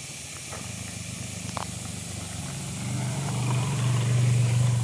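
Small motorcycle engines running at low speed, the hum growing louder from about three seconds in as the bikes come closer.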